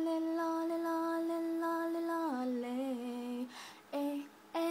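A young woman's voice singing unaccompanied: one long held note that steps down to a lower note a little over two seconds in, then two short notes near the end.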